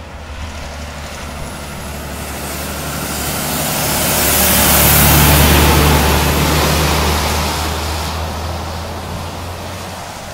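Heavy timber truck driving past: its engine drone and tyre noise grow louder to a peak about halfway through, then fade as it moves away.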